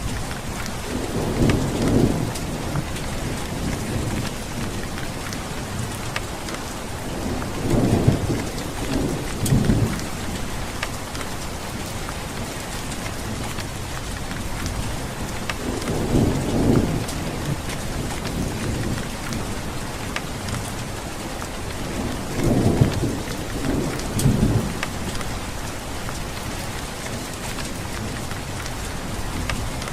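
Steady rain falling, with scattered drops ticking, and rolls of thunder rumbling low four times, every six or seven seconds.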